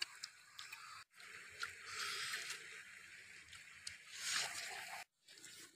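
Slurping broth from a bowl, in two drawn-out sips with small wet mouth clicks, the second about four seconds in.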